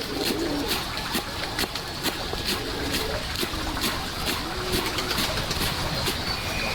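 A dove cooing in low, soft repeated phrases, with sharp clicks or taps about twice a second and a steady hiss.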